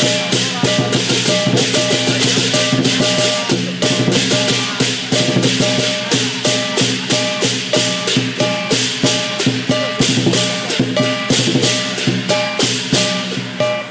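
Lion dance percussion band of drum, cymbals and gong playing a fast, steady beat. There are about three crashing strikes a second over a ringing tone.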